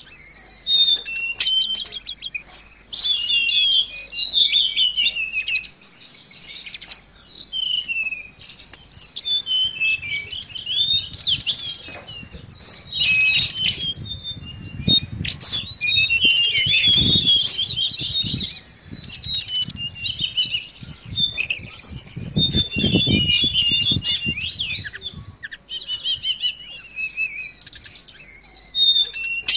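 Caged tledekan laut (blue flycatcher) singing a fast, continuous run of high chirps and twittering phrases. Two bouts of low rustling noise come about halfway through and again some seconds later.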